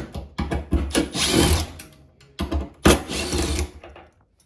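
A power drill-driver running in two bursts of about a second and a half each, undoing fasteners during a drum bearing replacement.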